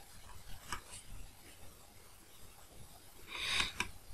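Quiet room tone with a few faint clicks, then a short sharp breath drawn through the nose near the end.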